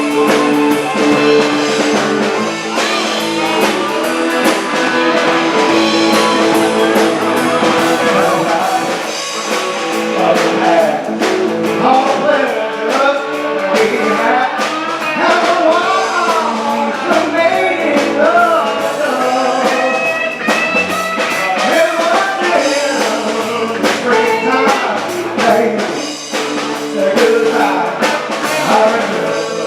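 Live rock-and-roll band playing, with guitar and singing.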